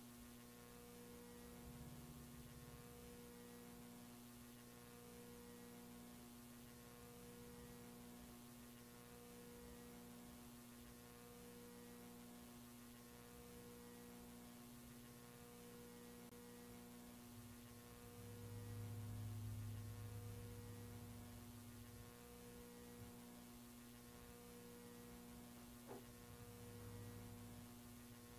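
Near silence with a faint steady electrical hum, part of which pulses on and off about once every second and a half. A soft low rumble swells up about two-thirds of the way through, and a single faint click comes near the end.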